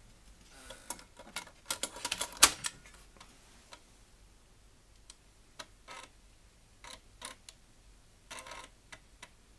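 Chinon FB-354 floppy drive clicking, with handling clatter around it. The clicks come irregularly: a dense run about two seconds in, then scattered single ticks. This ticking goes with a dirty disk-detect microswitch.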